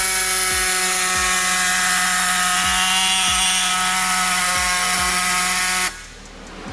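Power tool cutting through a car's radiator support: a steady, loud whine over a hiss that stops abruptly near the end.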